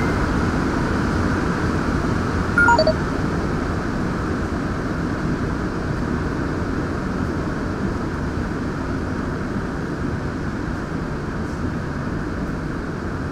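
Cabin noise of a rubber-tyred MR-73 metro train running through a tunnel: a steady rumble and rush that eases slightly as the train reaches a station near the end. About three seconds in, a short chime of three notes falls in pitch.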